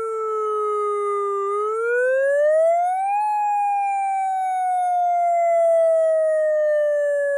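Electronic siren sounding a wail through an IP-15 horn speaker: the pitch falls slowly, climbs steeply over about two seconds starting about a second and a half in, then falls slowly again.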